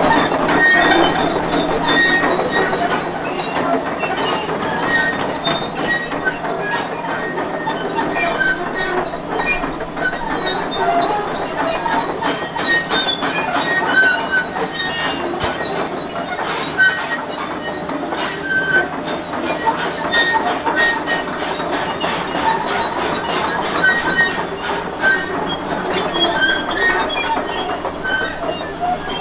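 Liebherr R954 crawler excavator travelling on its steel tracks: high squealing and dense clanking from the track links and rollers over a steady diesel engine.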